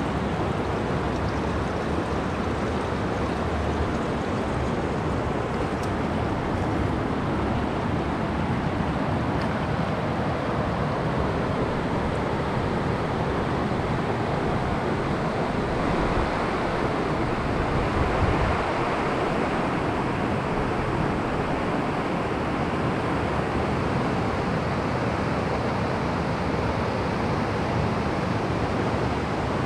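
Steady rush of a large spring's outflow running fast over rocks, an even unbroken noise that swells slightly about two-thirds of the way in.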